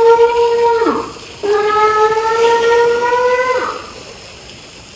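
A woman's long, held scream, twice, each about two seconds at a steady pitch and dropping off in a downward slide at the end: playful screaming, not distress.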